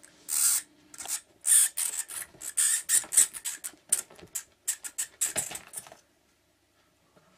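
Cats scuffling with a live mouse: a fast, irregular run of short scratchy noises that cuts off suddenly about six seconds in.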